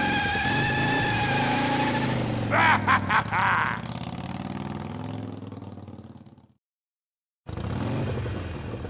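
Recorded motorcycle engine sound effect played through the animatronic's built-in speaker, revving with pitch glides and then dying away. It cuts to silence about six and a half seconds in and starts up again about a second later.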